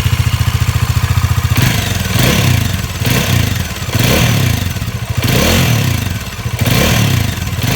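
Bajaj Dominar 400's single-cylinder engine idling, then revved up and let fall back about four times, with a slightly irritating noise from the engine. The owner suspects exhaust gas leaking at the joint between the engine and the silencer.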